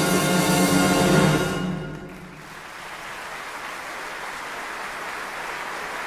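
Music ending on a long held chord that fades out about two seconds in, followed by a steady hiss-like noise.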